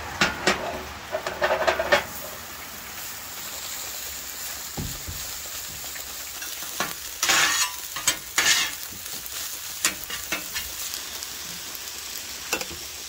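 Scrambled eggs sizzling on a hot flat-top griddle, with a metal spatula scraping and tapping on the griddle plate in bursts as the eggs are chopped and stirred.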